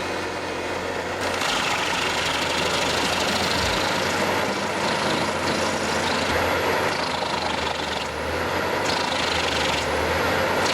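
Large truck-mounted wood chipper running, driven by a big Cat diesel engine, with a steady engine hum under dense mechanical noise that grows louder and brighter about a second in.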